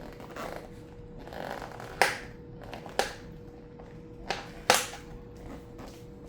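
Four sharp clicks and knocks of hand handling, spaced about a second apart, over a faint steady hum.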